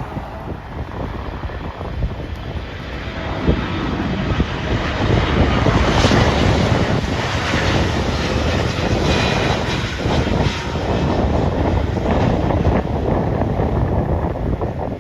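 Jet airliner passing by, its engine roar building from about three seconds in, loudest mid-way, then easing off near the end, with some wind on the microphone.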